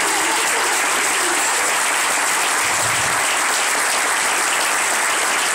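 An audience applauding, dense and steady.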